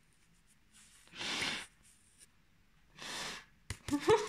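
Two breathy exhalations, about a second and about three seconds in, like soft huffs of laughter close to the microphone; near the end a few clicks and short voiced sounds begin.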